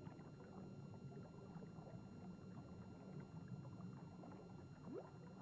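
Faint underwater ambience: a steady low rumble with scattered small crackles, and a short rising whistle near the end.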